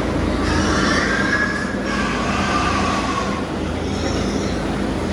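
Loud, steady machine-like noise with a low hum, overlaid by drawn-out high squealing tones in the first few seconds.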